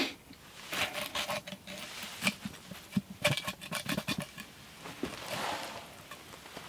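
A stick scraping and knocking against the coal-heaped lid of a cast-iron Dutch oven, in a few short clusters of scratchy clicks. A soft hiss follows about five seconds in.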